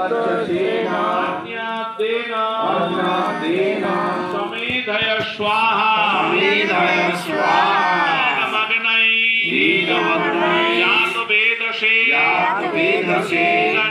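Male voices chanting mantras together in a sung melody, with long held notes that rise and fall. There is a brief break about nine seconds in.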